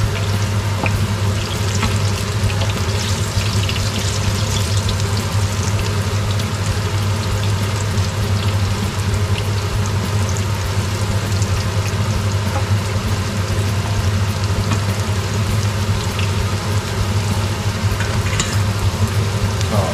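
Food frying in hot oil, a steady sizzle: diced onion sautéing in a wok to soften it until translucent, and eggplant slices frying in a pan of oil beside it. A steady low hum runs underneath.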